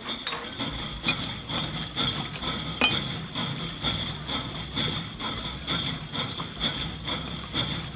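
Irregular knocking and clinking, as of hard objects tapped together, over a low steady hum that starts about a second in.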